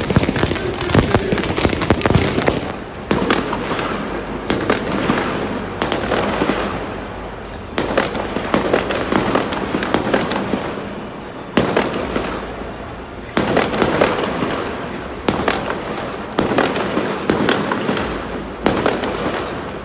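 Fireworks going off in a rapid barrage of sharp bangs and crackles that swells in loud clusters every couple of seconds.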